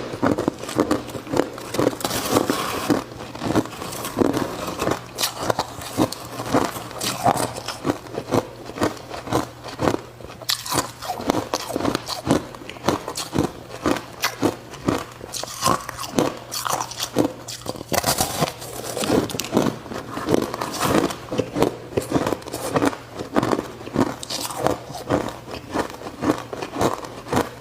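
Ice being bitten and chewed close to the microphone: a steady run of sharp crunches, a few each second.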